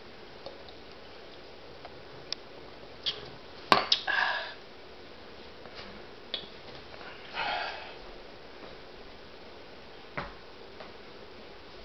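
A few scattered knocks and clicks in a quiet room, the loudest about a third of the way in, with two short vocal sounds, one just after it and one about halfway.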